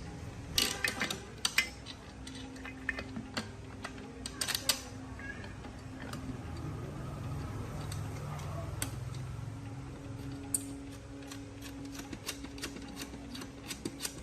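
A series of sharp clicks and light knocks of hard parts being handled, in short clusters and then a run of quicker, lighter ticks near the end, over a faint steady low hum.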